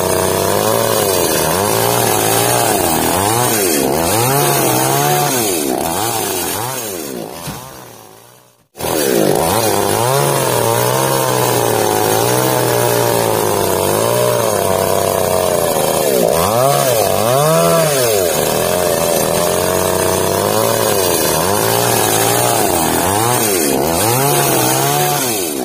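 An engine revved up and down over and over, its pitch rising and falling roughly once a second. It fades out about eight seconds in and comes straight back a moment later.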